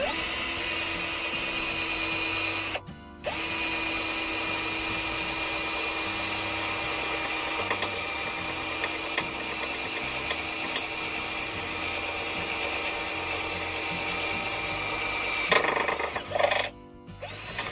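Cordless drill running steadily as it bores a pilot hole through thin metal. It stops briefly about three seconds in, then runs on, and ends in a few short, louder bursts near the end.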